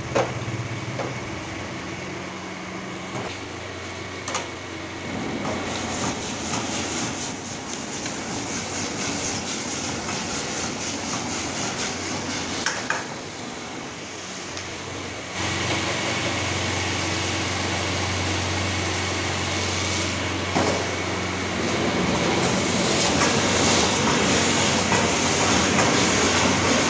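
Commercial gas wok burner running at high flame while chicken pieces sizzle in the wok, a metal ladle scraping and knocking against the pan. The burner noise drops briefly a little past the middle, then comes back louder.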